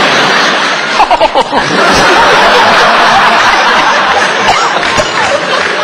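Studio audience laughing, a burst about a second in that swells into sustained laughter from the crowd.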